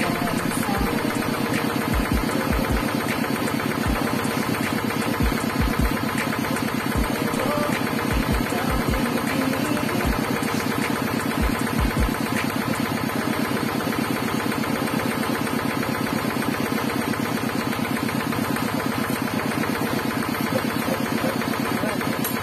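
Kuliglig (two-wheeled hand tractor) engine running steadily with a fast, even pulse. A few dull low thumps come in the first half.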